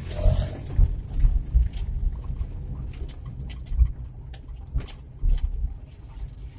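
Cab interior of an old Suzuki Carry 1.0 pickup under way: its small 1.0-litre four-cylinder engine and the road give a low, uneven rumble, with frequent short rattles and knocks from the cab. A brief rush of wind noise fades in the first half second.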